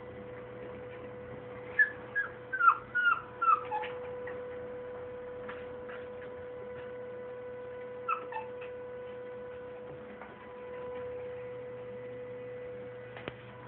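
Husky puppy whimpering: a quick run of about six short, high whines that fall in pitch, then two more a few seconds later. A steady electrical hum runs underneath.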